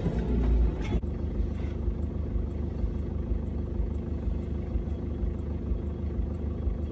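Off-road vehicle engine heard from inside the cab: it revs down in the first second, then settles to a steady idle.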